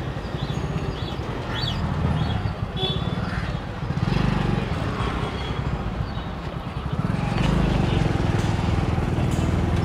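Motorcycle engine running while riding slowly through town traffic, heard from the rider's seat; it grows louder about four seconds in and again about seven seconds in as the throttle opens.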